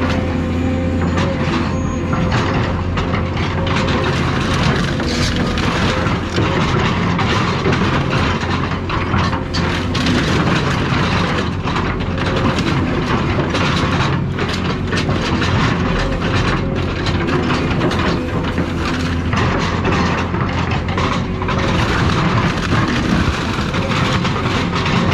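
Heavy scrapyard demolition machine running with a steady engine hum while metal from scrap cars clanks, scrapes and crunches as it is torn apart.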